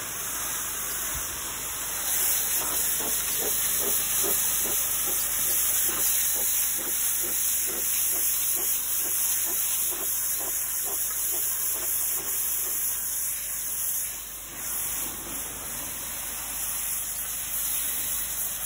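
High-pressure washer wand spraying water onto brick steps: a loud, steady hiss of the jet on the masonry, with a faint regular pulsing through the middle and a brief dip about fourteen seconds in.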